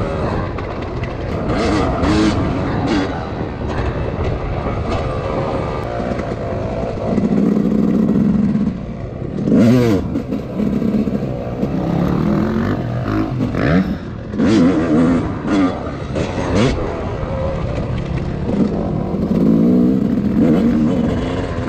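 Dirt bike engine being ridden hard, its revs rising and falling again and again. Sharp knocks and clatter from the bike come through as it runs over rough trail.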